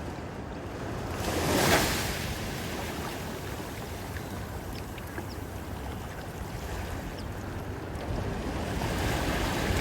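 Ocean surf: a wave breaks and washes in, loudest about two seconds in, over the steady wash of the sea, with wind rumbling on the microphone.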